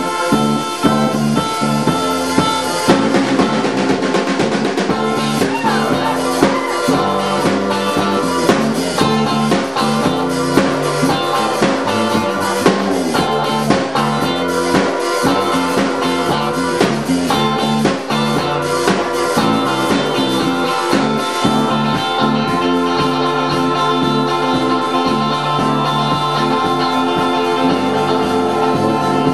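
Live rock band playing: electric guitar, keyboard and drum kit together. The drums and cymbals come in harder a few seconds in and thin out about three-quarters of the way through, leaving held chords.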